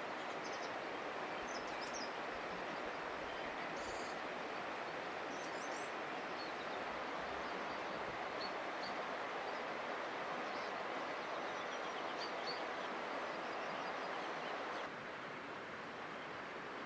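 Steady rush of a flowing river, with faint short bird chirps now and then. The rush drops a little in level near the end.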